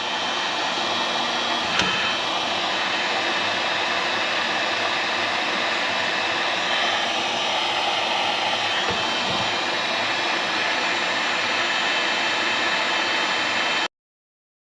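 Electric heat gun blowing steadily while shrinking heat-shrink tubing over the trolling-motor power plug wiring; it stops suddenly near the end.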